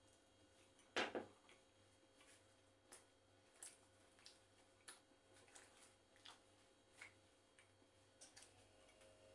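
Quiet eating sounds: soft mouth clicks and smacks of chewing, and small crackles of Arabic flatbread (khubz) being torn by hand, coming irregularly every half second or so. One much louder click comes about a second in.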